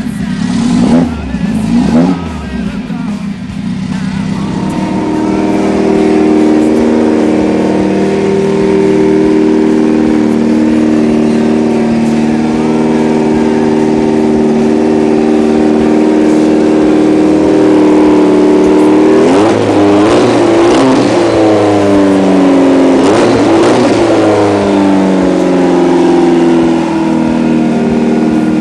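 Porsche 944 Turbo's turbocharged inline-four, with a Garrett GT turbo, running on its first start-up after a custom build: two quick blips in the first couple of seconds, then a steady idle, with two short revs of the throttle about twenty seconds in.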